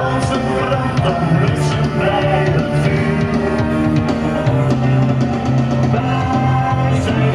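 Rock music with a singer, drums and guitar, playing steadily.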